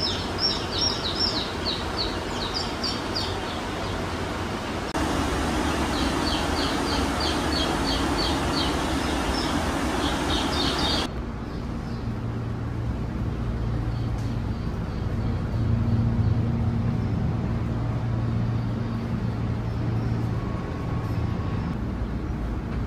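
Birds chirping over a steady hiss. After an abrupt change about 11 seconds in, a steady low engine hum takes over: a diesel railcar's engine idling.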